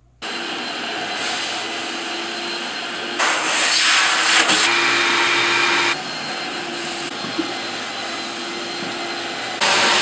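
Wet vacuum sucking water out of a flooded carpet: a steady motor whine under rushing air, starting suddenly and growing louder for a few seconds in the middle and again near the end.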